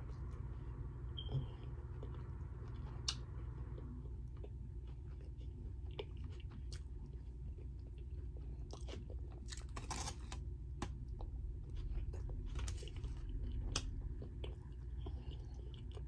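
A person chewing a taco, with scattered short clicks and crunches that come thickest in the second half, over a steady low hum.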